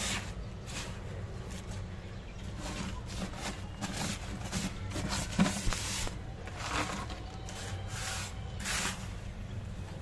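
A hand scraping and raking through dry sandy dirt and grit, a string of gritty rustling scrapes of varying length, with one sharper knock about five and a half seconds in.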